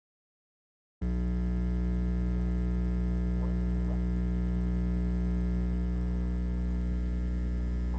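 Steady electrical mains hum with many overtones, cutting in after about a second of dead silence.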